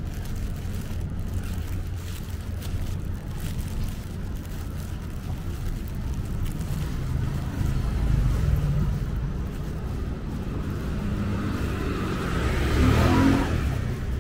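Street traffic rumbling, with a vehicle passing close about 13 seconds in, its pitch falling as it goes by.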